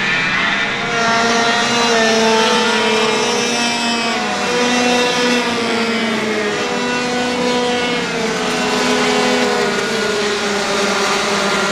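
Several go-kart engines running together at racing speed, their pitch rising and falling as they accelerate and back off.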